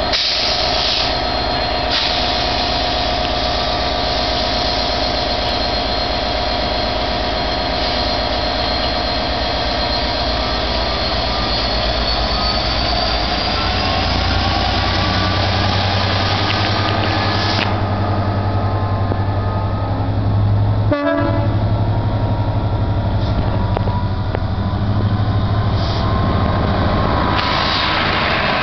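Class 67 diesel-electric locomotive's V12 two-stroke diesel running with a steady high whine that fades out about twelve seconds in. Then a deep low rumble builds as the engine opens up and the locomotive pulls away past.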